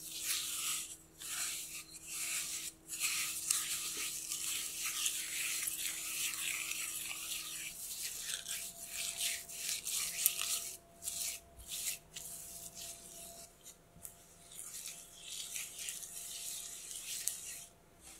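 Silicone spatula mashing and mixing granulated sugar into butter in a glass bowl: gritty scraping and rubbing strokes. The strokes are separate at first, then run almost continuously with a few short pauses.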